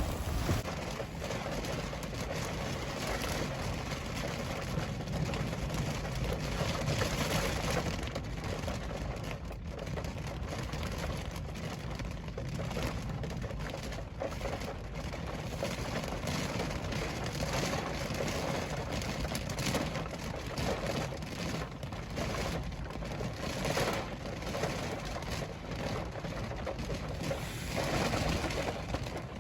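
Rain from a severe thunderstorm falling steadily, a dense hiss of many small drop impacts.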